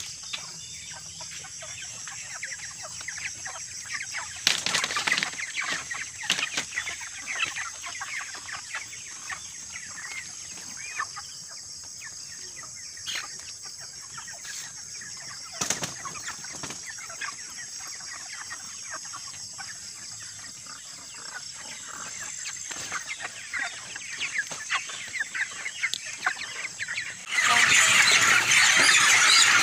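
Broiler chickens packed in plastic crates shifting and clucking, with short bursts of wing flapping now and then. About 27 seconds in it turns suddenly much louder: a whole flock of broilers in the poultry house calling together while birds are caught for harvest.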